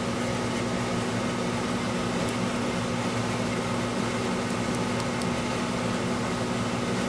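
Steady background hum and hiss with a constant low tone, unchanging throughout; nothing else stands out.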